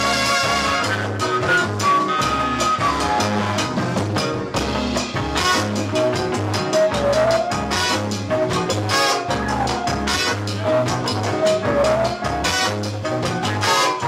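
Live band with a horn section: two trumpets and a flute playing melody lines over drum kit, bass and Latin percussion, with a steady driving beat.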